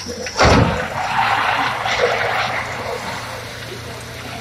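Racing vans and cars on a wet oval track, engines running and tyres skidding, with a loud thump about half a second in.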